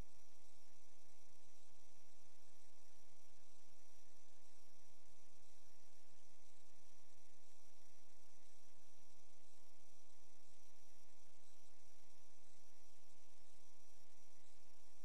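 Steady electrical hum, a buzz with no change and no other sound over it, typical of interference on a drain inspection camera's audio track.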